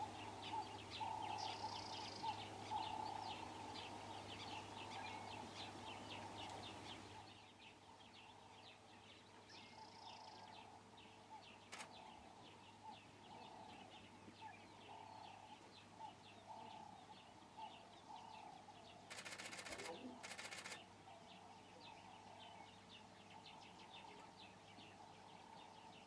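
Faint evening bird calls with rapid high chirping over a low background hum that drops away about seven seconds in; two short rushes of noise come around twenty seconds in. No lion roar is heard.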